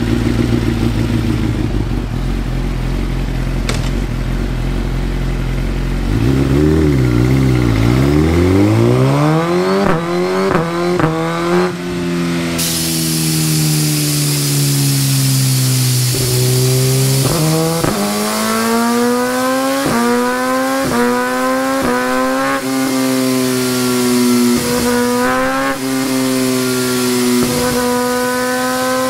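A 2017 Suzuki GSX-R1000's inline-four engine running on a dyno: a steady idle, then quick blips of the throttle. It is then run up through the rev range, its pitch rising and falling several times and climbing steadily near the end.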